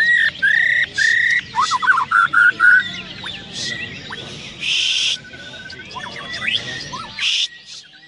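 White-rumped shama (murai batu) singing: loud, clear whistled phrases with rising slurred notes, then a quick run of short notes, through about the first three seconds. After that come quieter scattered notes and two short harsh hissing calls, with other songbirds chirping behind.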